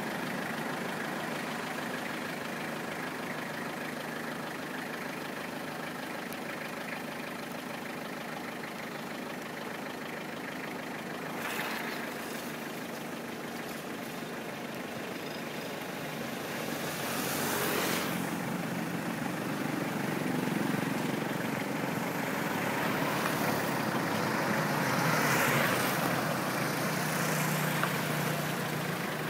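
Steady road traffic noise with vehicle engines running. Several vehicles pass one after another in swells of sound, the loudest about halfway through and again near the end.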